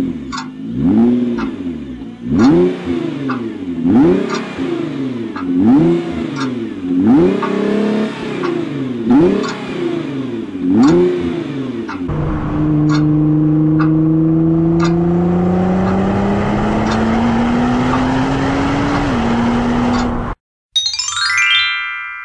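Nissan GT-R's twin-turbo V6 revved in about eight quick blips, each rising and falling. It then holds one long pull with the pitch climbing slowly, and cuts off suddenly. A short rising chime follows near the end.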